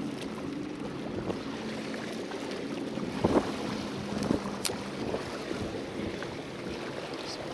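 Steady low engine hum with wind on the microphone and a wash of water, broken by a few short knocks and a click about three to five seconds in.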